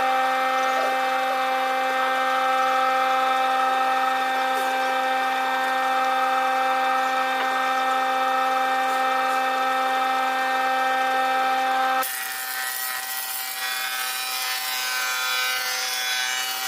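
An electric power tool running steadily on wood, a constant whine over a rough rasping noise. About twelve seconds in the whine fades and a rougher, noisier cutting sound goes on.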